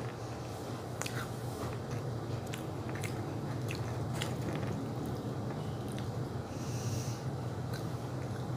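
A person biting and chewing a snack close to the microphone, with scattered small crunchy clicks, over a steady low hum.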